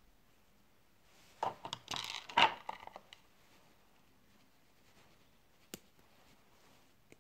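Plastic Lego Technic pieces clattering and clicking as they are handled and fitted together: a short burst of rattling about a second and a half in, then two single sharp clicks later on.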